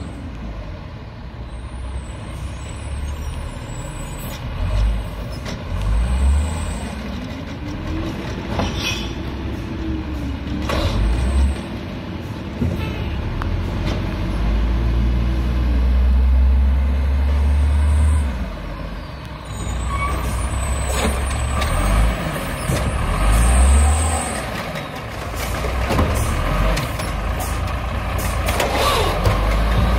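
Old Peterbilt garbage truck's diesel engine running and revving, its pitch rising and falling several times through the middle, with short air brake hisses. Near the end comes a rougher clatter as the automated side-loader arm lifts and dumps a cart.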